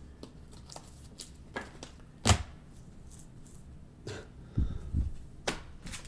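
Trading cards being handled and sorted on a table: scattered light clicks and taps, the sharpest a little over two seconds in, with a couple of soft low knocks later on.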